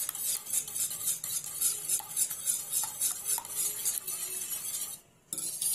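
Metal wire whisk beating eggs in a plastic bowl: quick, even strokes of the wires through the egg and against the bowl. The strokes stop about five seconds in, then come back in one short burst near the end.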